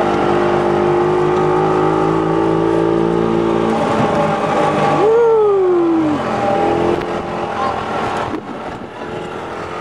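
Engine of a utility cart running steadily, then dropping away about four seconds in, with a single falling whine about a second later.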